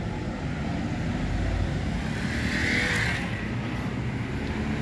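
Road traffic at a busy city intersection: a steady low rumble of passing vehicles, including a motorcycle and a bus. A brief louder, higher-pitched noise comes about two and a half seconds in.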